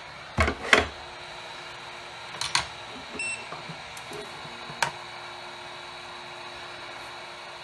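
A few light knocks and taps of tools and parts being handled on a silicone-matted workbench, over a steady low hiss with a faint hum.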